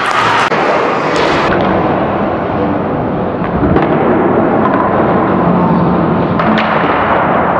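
Ice hockey play heard from rinkside: a steady wash of arena noise with scattered sharp clacks of sticks and puck on the ice and boards.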